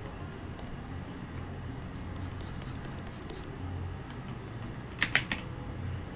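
Computer keyboard keys pressed for shortcuts: a few scattered light clicks, then a louder quick cluster of key clicks about five seconds in, over a low steady hum.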